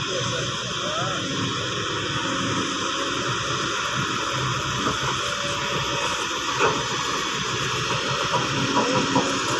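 Kobelco crawler excavator's diesel engine and hydraulics running steadily with a strong hiss as it swings a loaded bucket of soil over a dump truck.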